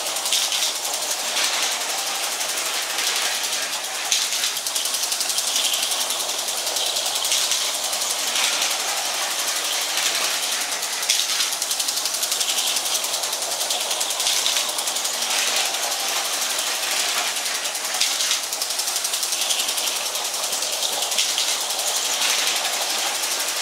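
Lego 12V model train running on its plastic track: a steady mechanical rattle of motor and wheels, full of rapid fine clicks, swelling every second or two.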